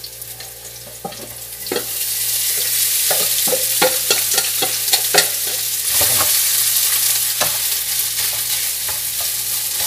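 Cooked rice sizzling as it goes into a frying pan of hot oil for fried rice, starting about two seconds in. A wooden spatula knocks sharply against the metal bowl and pan several times as the rice is scraped out and stirred.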